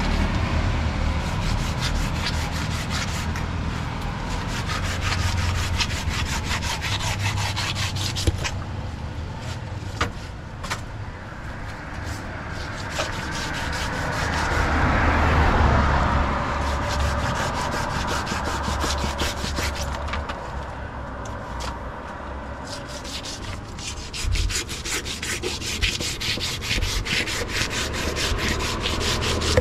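A knife scraping rapidly and repeatedly over a large catla carp, scaling the fish in quick strokes.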